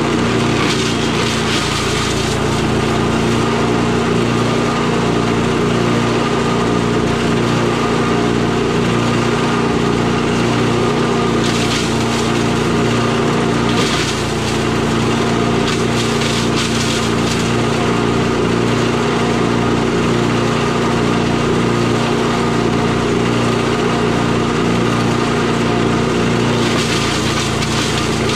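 The 8 hp Briggs & Stratton engine of a Tomahawk chipper shredder running steadily at a constant pitch, with a few short bursts of rough noise as sticks are fed in and shredded. The engine note sags briefly about halfway through.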